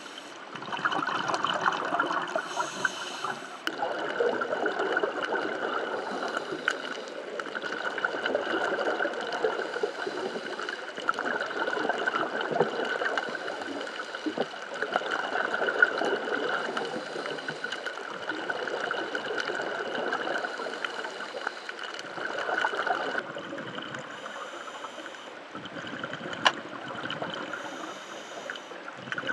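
Underwater water noise picked up by a dive camera: a continuous muffled wash and gurgle of moving water that swells and fades, over a faint steady high tone, with a couple of sharp clicks.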